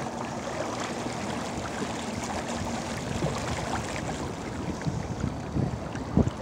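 Water rushing and splashing along the bow of a kayak under way, with some wind on the microphone. A few louder splashes or knocks come near the end.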